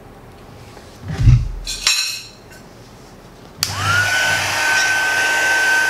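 Heat gun switched on about three and a half seconds in: its motor whines up quickly to a steady high pitch and runs on with a loud rush of air. Before it, a few knocks and a clatter as things are handled on the bench.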